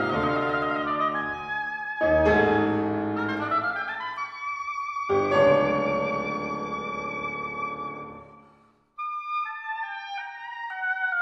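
Oboe and piano playing classical chamber music: three heavy piano chords struck about two to three seconds apart ring out under a held oboe line. Near the end the piano fades out, a brief silence follows, and the oboe continues alone with a run of quickly changing notes.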